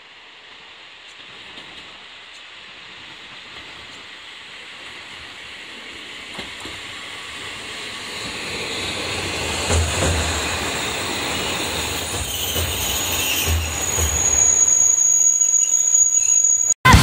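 Two-car JR Shikoku diesel railcar train (KiHa 32 and KiHa 54) approaching and running past close by, its noise building steadily with a low engine drone. A high, steady squeal joins in the last few seconds.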